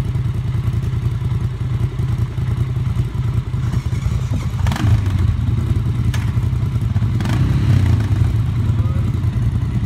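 ATV engine idling steadily, with three sharp knocks about five, six and seven seconds in.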